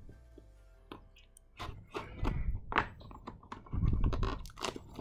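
A cardboard product box being handled and opened by hand: irregular knocks, taps and rustling scrapes of the cardboard, sparse at first and busier from about a second and a half in.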